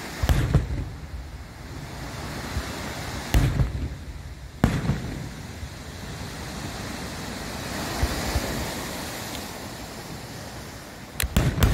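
Aerial fireworks shells bursting with sharp bangs: one about half a second in, two more around three and a half and nearly five seconds in, a fainter one later, and a quick run of several bangs near the end.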